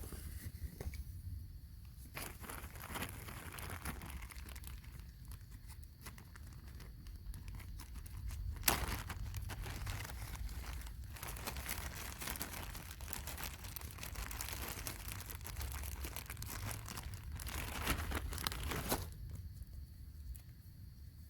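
Plastic packaging crinkling and being torn, with one sharp snap about nine seconds in.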